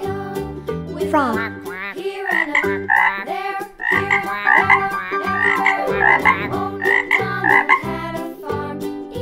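Frog croaking sound effect, a run of repeated croaks roughly two a second, over children's background music. A rising glide comes just before the croaks, about a second in.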